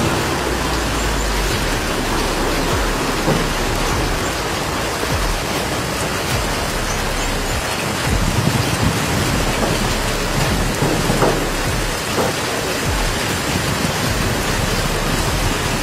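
Heavy downpour: a steady, loud hiss of rain falling on a flooded street.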